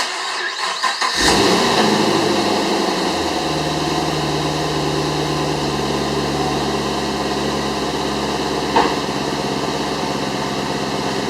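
2010 Chevrolet Camaro SS's 6.2-litre LS3 V8 starting on fresh spark plugs, wires and coils: the starter cranks for about a second, the engine catches, flares up and then settles into a steady idle. A brief sharp knock sounds near the end.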